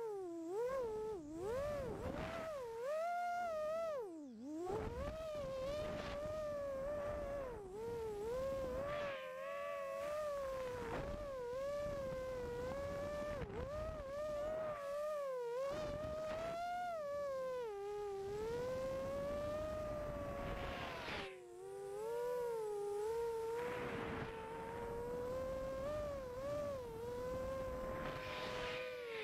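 FPV quadcopter's brushless motors whining, picked up by the onboard camera, the pitch rising and falling constantly as the throttle changes. The level drops briefly about four seconds in and again a little past two-thirds through, where the throttle is cut.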